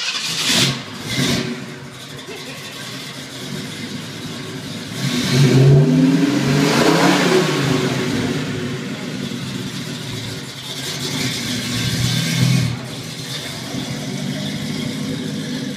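1971 Mustang's 429 V8 running just after start-up. It is revved up and back down about five seconds in, blipped again around eleven to twelve seconds, then settles to a steady low-speed pull as the car moves off.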